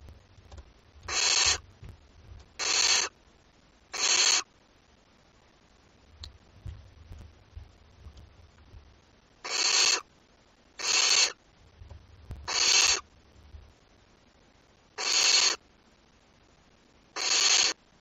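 Barn owl chicks giving harsh, hissing calls, each about half a second long. There are eight in all: three in quick succession, then a pause of about five seconds, then five more. This rasping hiss is the nestlings' food-begging call.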